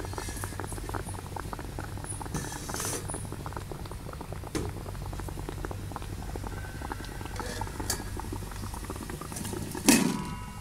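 Water boiling hard in a metal wok around a bowl of egg, a steady dense crackle of bursting bubbles. About ten seconds in, a steel bowl is set upside down on the wok as a lid with a loud ringing clank.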